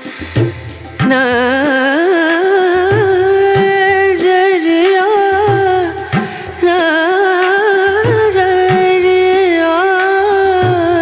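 Indian-style background song: a melody of long, wavering held notes with quick ornaments over a steady drum beat, coming in loudly about a second in.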